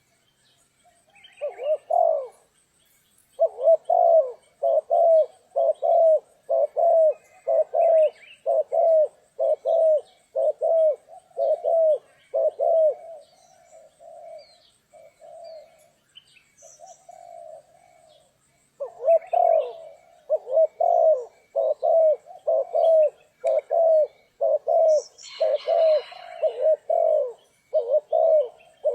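Spotted dove cooing: a long run of short, low coos at about one and a half a second. The coos fall softer and sparser in the middle, then a second loud run begins. Faint higher chirps of small birds sound in the background.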